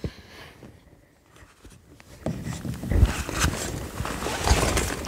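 Rustling and scraping of a long fabric duffel bag as a synthetic montante is pulled out of it, with a couple of dull knocks; the handling starts about two seconds in after a quiet stretch.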